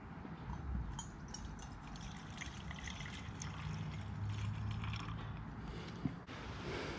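Alcohol fuel trickling from a bottle into a Trangia spirit burner, with many small light ticks along the way and one sharp click about six seconds in.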